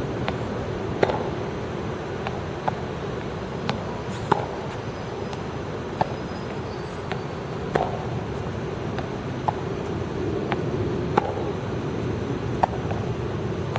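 Tennis balls being struck with rackets and bouncing on the court during a feeding drill: a dozen or so sharp knocks about every second or two, over a steady background hum.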